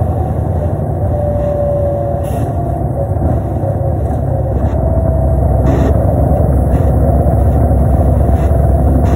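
Inside a 2005 New Flyer D35LF transit bus under way: its Cummins ISL diesel and Allison transmission run with a steady, deep drone and road rumble. Short rattles and brief faint whines come and go over it.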